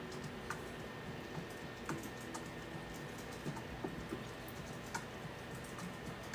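Irregular light clicks and taps, a few a second, over a faint steady hum.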